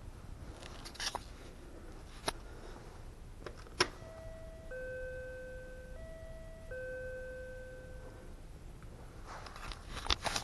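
A two-note electronic ding-dong chime sounds twice, a higher note dropping to a longer lower one each time, after a few sharp clicks. Rustling and clicking handling noise near the end.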